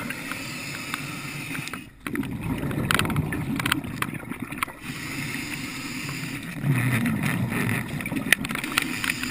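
Muffled underwater noise heard through a camera housing: a steady low rumble of water with scattered sharp clicks and knocks, dipping briefly about two seconds in.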